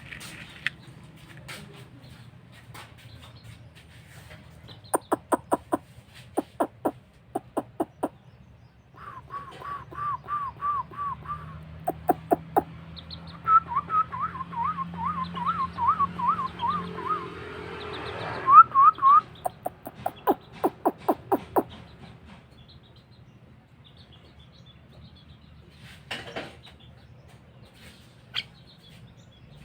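Javan myna (jalak kebo) calling: groups of sharp, rapid chips, and two runs of quick, repeated wavering whistled notes near the middle.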